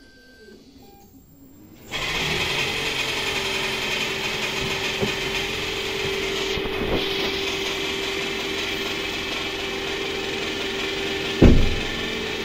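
2021 Toyota Corolla hybrid's petrol engine starting about two seconds in, then running steadily with a steady hum; the car is starting again after its hybrid-system fault codes were cleared. A single thump near the end.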